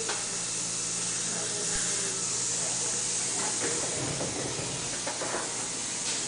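Dental suction tube hissing steadily as it draws air and saliva from the patient's mouth during a tooth extraction, with a few brief irregular noises about four to five seconds in.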